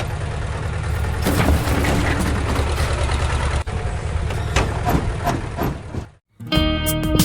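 A steady low engine sound with many clicks and clatters over it; it stops abruptly about six seconds in, and strummed guitar music begins just after.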